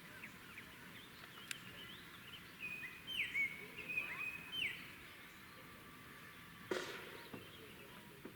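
Birds chirping outdoors, a few short bright calls bunched together in the middle, over a faint steady background hiss. A single sharp click sounds shortly before the end.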